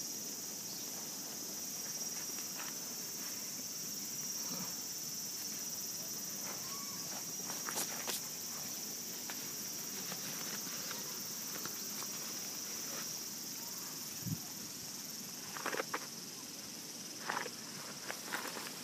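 Insects buzzing in a steady high hum, with scattered short crunches of steps on gravelly ground, more of them near the end.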